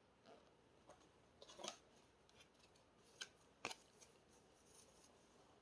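Faint handling of paper and card, mostly near silence: a few soft rustles and scrapes, a small cluster of them about a second and a half in, and one sharper tick a little past the middle.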